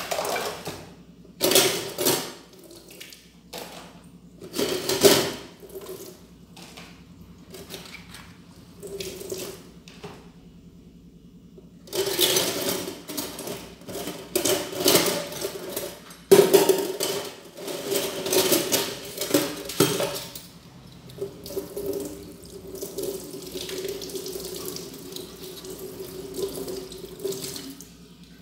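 Kitchen tap water running into the sink and splashing over dishes as they are rinsed. It comes in short spurts with a quiet pause about ten seconds in, then runs more steadily near the end.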